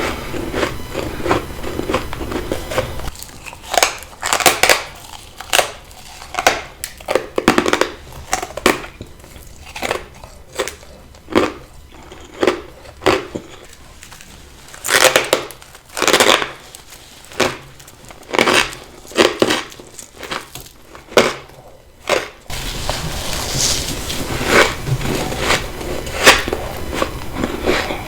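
Ice being bitten and chewed: a run of separate crisp crunches, roughly one a second, with steadier crunching at the start and again in the last few seconds.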